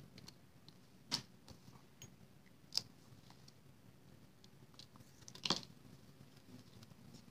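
Faint handling clicks and taps from metal tweezers and a paper greeting piece as small foam dimensionals are stuck on. Three sharper clicks come about a second in, near three seconds and, loudest, about five and a half seconds in.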